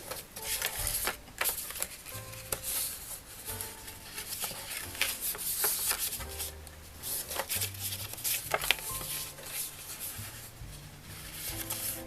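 Cardstock being folded by hand along its score lines, with scattered crisp crackles, taps and rubbing of the paper. Soft background music plays underneath.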